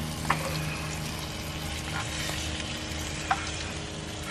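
Crappie fillets frying in hot oil in a pan: a steady sizzle, with a few brief sharp clicks.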